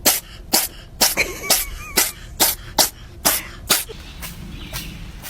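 A cat sneezing in a rapid fit: about nine short, sharp sneezes, roughly two a second, stopping about four seconds in.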